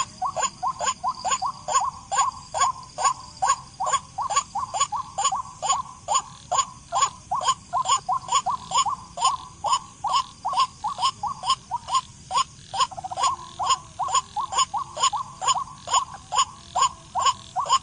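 White-breasted waterhen calling: a long, monotonous series of short, clipped notes repeated about three times a second without a break.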